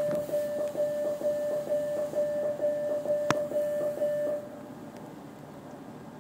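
Commuter train's door warning beeper sounding at a platform stop: a rapid run of beeps on one mid-pitched tone that stops after about four and a half seconds. A single sharp knock comes about three seconds in.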